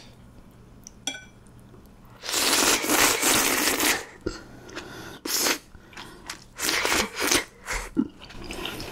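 A long slurp of spicy stir-fried noodles off a wooden spoon, starting about two seconds in and lasting under two seconds. It is followed by short bursts of wet chewing and eating sounds.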